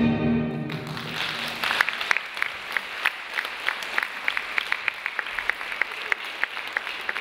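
Recorded orchestral ballet music ends on a held final chord within the first second, then an audience applauds, with individual sharp claps standing out.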